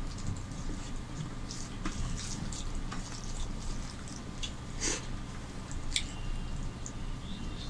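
Two people eating rice and fish curry by hand: chewing and lip smacks, with scattered short clicks, over a faint steady hum.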